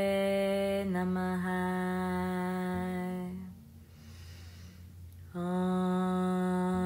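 A woman's voice chanting the last word, 'namaha', of a Sanskrit guru mantra as a long, steady held note. After a short break it goes into a second long note on the same pitch, sung as a hum.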